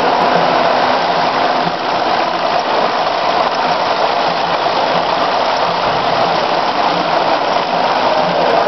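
Steady, loud mechanical noise of a production line carrying plastic trigger-spray bottles through its machinery and conveyors.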